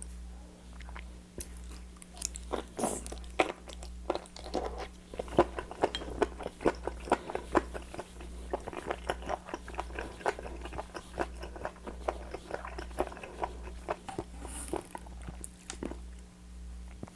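Close-up chewing and biting of raw seafood: many quick, crisp clicks of chewing, sparse at first and coming thick from about two seconds in. A steady low hum runs underneath.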